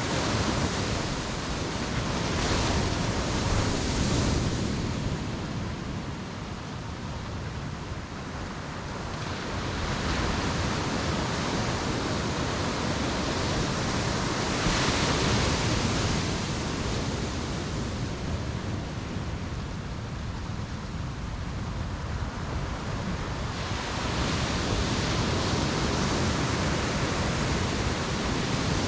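Ocean surf breaking on a beach, a steady wash that swells and eases every several seconds as each wave comes in and draws back.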